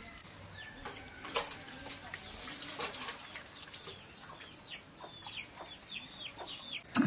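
Chickens clucking. In the last couple of seconds a bird chirps a quick run of short falling notes, and a few sharp clicks sound in the first half.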